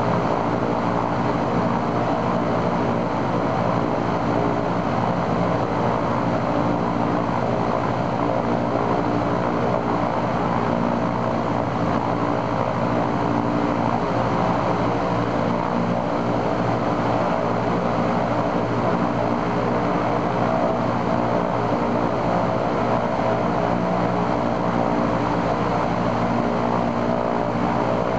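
Ilyushin Il-14's right engine, an ASh-82T twin-row radial, running steadily on a ground run-up with its propeller turning, as a test after its oil cooler was replaced.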